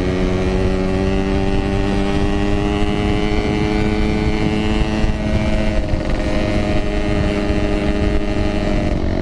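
Yamaha RX-King two-stroke motorcycle engine running under way while riding, its pitch climbing slowly and then shifting about halfway through, over a low wind rumble.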